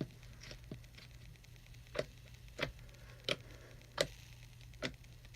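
Homemade clear glitter slime being squished and worked by hand, giving sharp clicks and pops at uneven intervals as air bubbles trapped in it burst.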